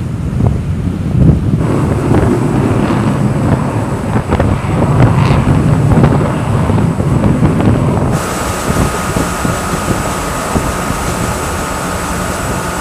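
Wind buffeting the microphone over a low engine and sea rumble, recorded on the move aboard a ship or aircraft. The sound shifts abruptly twice, and from about eight seconds in a steady high hum runs under the wind.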